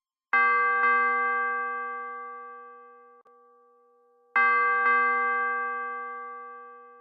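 A bell-like chime sounding two quick strokes that ring out and fade slowly, then the same double stroke again about four seconds later.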